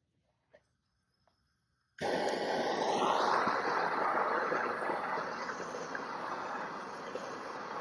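A gas torch lit about two seconds in, with a brief rising whistle as it catches, then burning with a steady rushing hiss, heating the factory undercoating tar on the fender so it can be scraped off.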